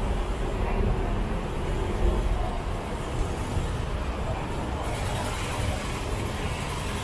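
Road traffic going by on a city street: vehicle engines and tyres in a steady low rumble, with a hiss that rises in the upper range about five seconds in.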